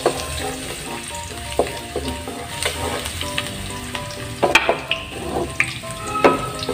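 Minced garlic sizzling in hot cooking oil in a metal wok, stirred with a wooden spatula that scrapes and knocks against the pan now and then.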